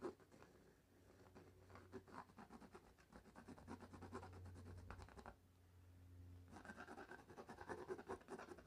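Pencil scratching on a canvas in quick back-and-forth shading strokes, faint. The strokes pause briefly about five seconds in, then start again.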